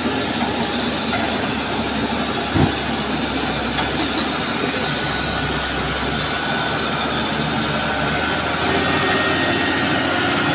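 Diesel engine of a fully loaded Mitsubishi Fuso dump truck working hard under load as the truck crawls up out of the mud on a tow cable, a steady heavy engine sound that grows a little louder near the end. A single low thump about two and a half seconds in.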